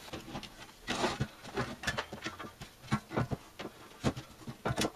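Irregular light clicks and knocks of the B&K Precision E-200D signal generator's painted sheet-metal cabinet panels being handled and fitted into place around the chassis, a dozen or so taps.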